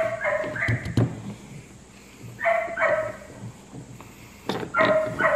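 A dog barking: short high barks in pairs, in three bouts a couple of seconds apart. A couple of light knocks come in the first second.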